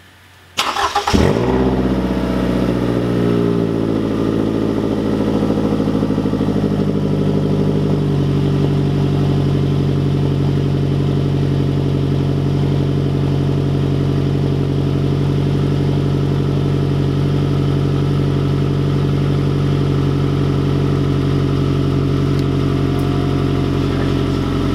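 Scion tC's four-cylinder engine cranks and catches about half a second in, then idles high on a cold start through an exhaust dumped short, its TRD axle-back section removed. The idle steps down and settles around eight seconds in.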